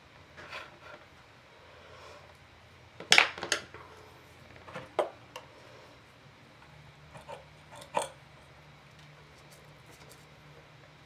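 Light clicks and knocks of paintbrushes and small tools being handled and set down on a tabletop, the loudest cluster about three seconds in, with a few softer taps later.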